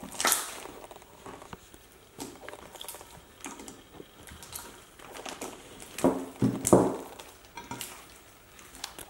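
Hands squeezing and kneading sticky green slime (gak) in a ceramic dish: squelching and popping, with louder squelches just after the start and about six to seven seconds in.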